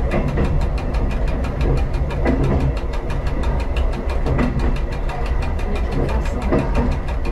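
Diesel railcar engine running steadily as the train rolls along the track: a continuous low rumble with a fast, even pulse.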